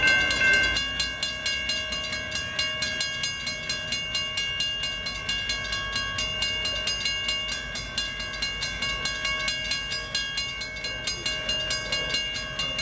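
Railroad grade-crossing warning bell ringing with rapid, even strikes, its ringing tones held steady between strikes.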